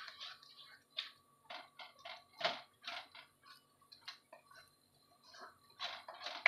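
Wooden spatula scraping and knocking against a non-stick kadhai as a thick onion-tomato masala is stirred and fried, with irregular short scrapes and pops a few times a second, the loudest about two and a half seconds in.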